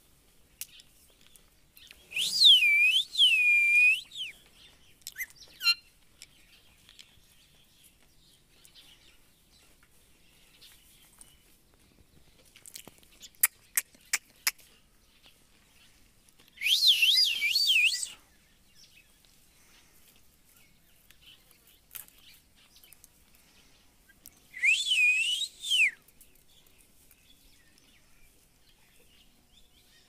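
Indian ringneck parakeet giving three short bouts of loud, high, looping whistled calls, each a quick run of rising-and-falling notes. A few sharp clicks come between the first and second bouts.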